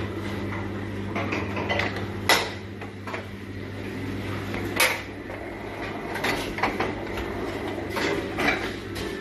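A steady low mechanical hum with scattered sharp clicks and knocks of handwork on metal parts, the loudest about two and a half and five seconds in.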